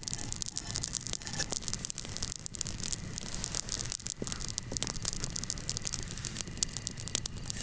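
Wood campfire burning, crackling steadily with many small, sharp pops and snaps.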